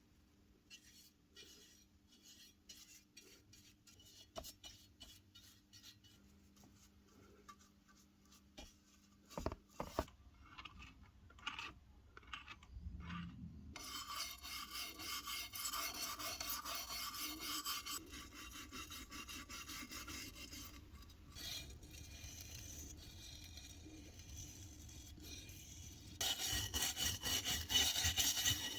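Light clicks and taps of small can opener parts being handled. About halfway through, a steady rough abrasive rubbing starts, as a part is scrubbed or sanded to clean off rust and grime. It gets louder near the end.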